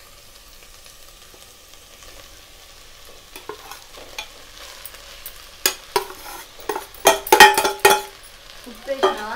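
Steel spoon scraping and knocking cooked rice out of a stainless steel vessel into a steel pot of vegetables on the stove, with a run of loud metal clanks from about six to eight seconds in. Underneath, a faint steady sizzle of the vegetables cooking.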